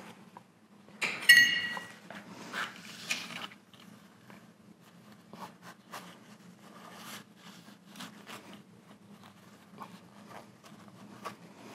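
A metal ring clinks about a second in and rings briefly with a high tone. Then comes faint rubbing with light scattered taps as a rag wipes old, dirty grease from the bearing inside a lathe clutch housing.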